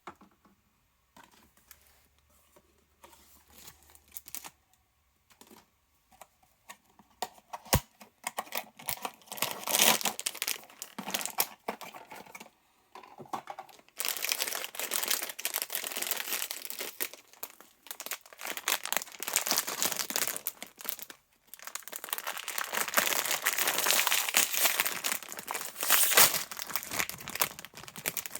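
Crinkly packaging being handled and torn open: a few faint clicks and taps at first, then dense crinkling and tearing from about eight seconds in.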